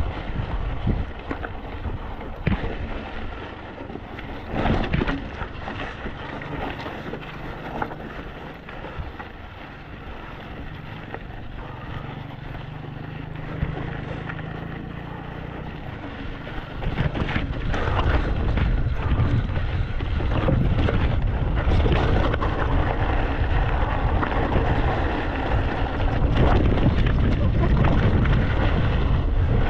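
Wind buffeting the microphone while riding a mountain bike over a trail, with scattered knocks and rattles. The wind rumble grows much louder a little over halfway through.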